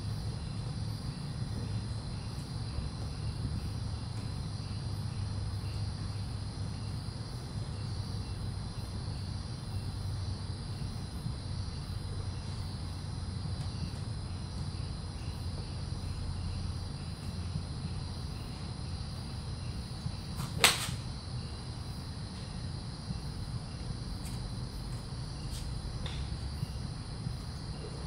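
One sharp crack of a golf club striking a ball off a hitting mat, about three-quarters of the way through, over steady cricket chirping and a low hum. A couple of lighter clicks near the end as a fresh ball is raked over from the tray with the club.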